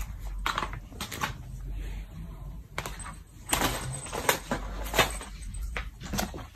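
Two cats wrestling on a wooden floor: irregular knocks, clicks and scuffling as their bodies, paws and one cat's plastic cone collar hit the floorboards.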